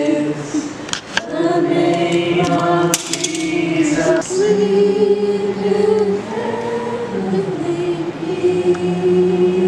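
A group of people singing a slow song together, holding long notes, with a couple of faint clicks in the first few seconds.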